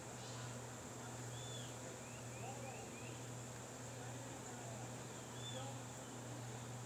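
Birds chirping now and then, short arched calls, over a steady even hiss with a low hum and a thin high whine underneath.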